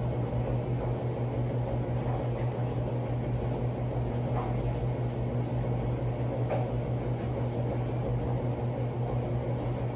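Steady low hum over constant background noise, with a few faint soft clicks.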